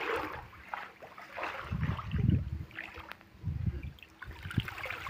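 Water sloshing and splashing in a lined fish tank as people wade and work a net through it by hand, with a few low rumbling swells, the loudest about two seconds in.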